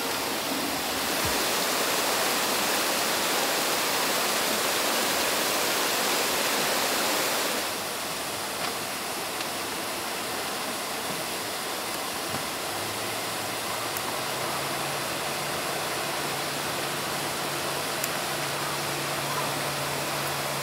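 Steady rushing noise of running water, like a stream, stepping down in level about a third of the way in. A faint low steady hum joins it in the last third.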